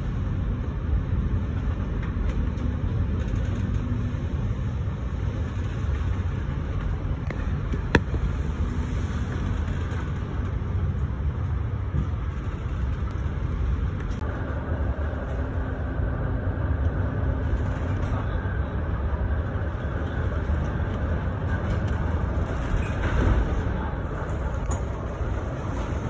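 Strong wind buffeting a phone's microphone on a ship's open bow deck in heavy seas: a steady low rumble with sea spray hissing over it, the hiss growing louder about halfway through. A single sharp click about eight seconds in.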